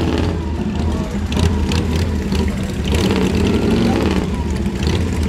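Several cruiser motorcycle engines running at a crawl just above idle, a steady low rumble that swells a little with small throttle openings, with voices of the crowd over it.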